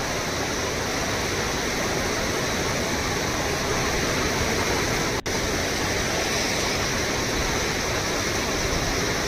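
Steady rushing of flowing river water, with a short dropout about five seconds in.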